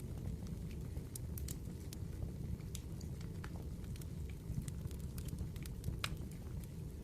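Firewood burning in a campfire: irregular, scattered crackles and pops over a steady low rumble, with one sharper pop about six seconds in.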